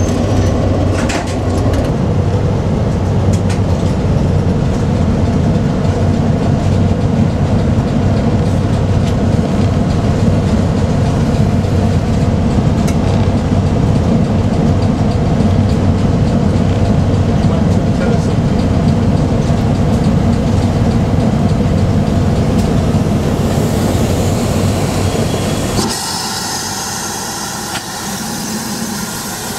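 Class 17 Clayton diesel locomotive running steadily, heard from inside its cab as it moves along the line. Near the end this gives way to a steady hiss of steam from a Great Western steam locomotive.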